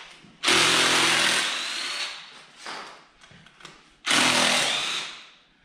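Cordless drill spinning out valve cover bolts on an LS 4.8 engine, in two runs: one of about a second and a half with a rising whine, and a shorter one about four seconds in.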